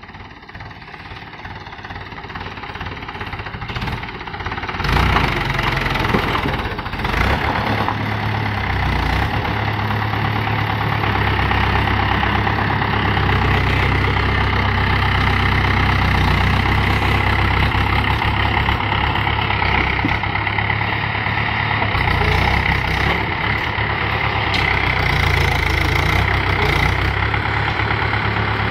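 Diesel engines of a Mahindra farm tractor and a JCB backhoe loader running together with a steady low throb. The sound builds over the first five seconds, then holds steady.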